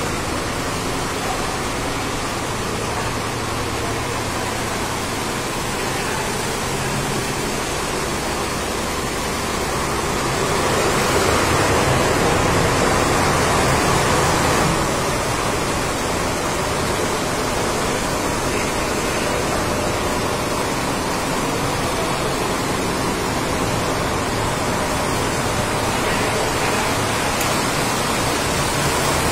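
Dense, steady mechanical din of Richpeace multi-head embroidery machines running, louder for a few seconds near the middle.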